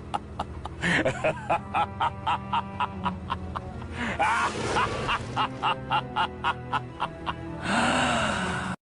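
Short music clip used as a meme sound effect, with a steady beat of about three beats a second. Near the end comes a louder hissing burst, and the clip cuts off abruptly.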